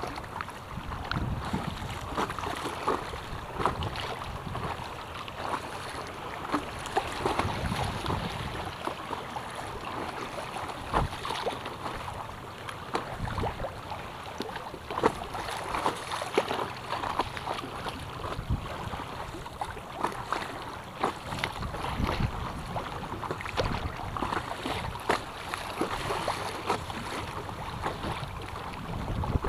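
Choppy river water rushing and splashing around an iRocker inflatable stand-up paddleboard drifting through a riffle, with frequent irregular slaps of water against the board. Wind buffets the microphone.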